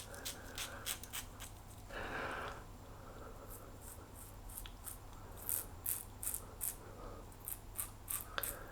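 Quad-edge safety razor with double-edge blades scraping through lathered stubble in a series of short, faint strokes, most frequent in the second half.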